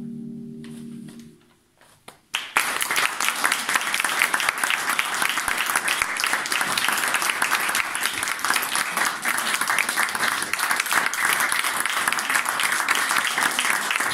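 The last chord of a harp ensemble rings out and fades; after a brief hush, an audience breaks into steady applause about two and a half seconds in.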